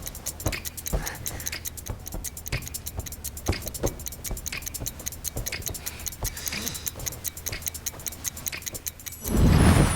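Background music cue built on a fast, clock-like ticking with soft beats about twice a second, ending in a loud whoosh-like swell about nine seconds in.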